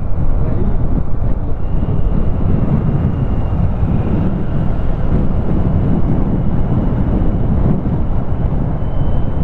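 Wind buffeting the microphone, with a motorcycle running underneath it while riding; a loud, steady rushing that swells and dips.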